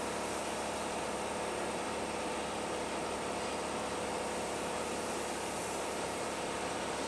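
Steady machine hum with several constant tones, unchanging throughout.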